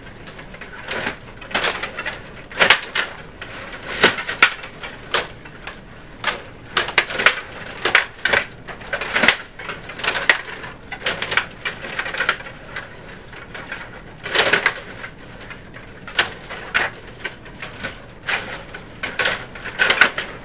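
Table hockey game in play: irregular sharp clacks and knocks of the plastic players, control rods and puck, a few a second.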